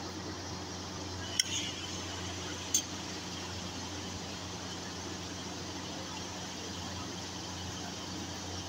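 Two sharp clinks of steel tableware, about a second and a half apart, as the food on a steel plate is handled. A steady hiss and low hum run underneath.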